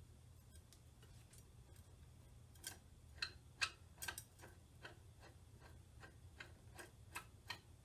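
Faint, irregular light clicks of the TSProf knife sharpener's angle adjustment being turned and set, starting a few seconds in, over a faint steady low hum.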